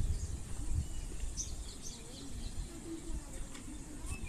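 A few short, high bird chirps in the background over a low, steady rumble of room noise.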